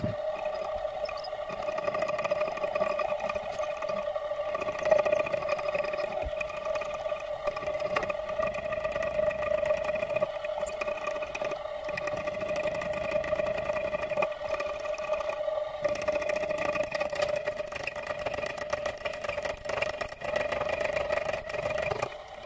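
Small electric milling spindle running with a steady whine, cutting off abruptly near the end.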